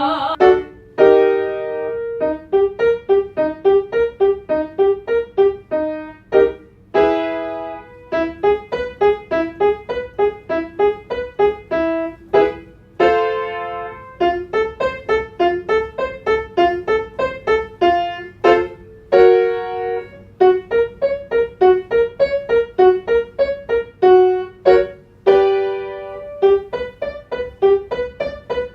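Piano playing the accompaniment to a staccato vocal exercise: short, detached notes at about three to four a second, with a louder chord struck roughly every six seconds as each round of the pattern begins.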